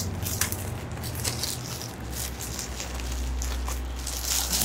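Plastic shrink-wrap crackling and crinkling as it is peeled and torn off by hand, a run of many short, sharp crackles.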